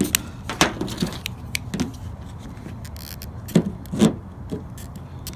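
Irregular plastic clicks and knocks from a windshield wiper blade being worked loose from its wiper arm's clip.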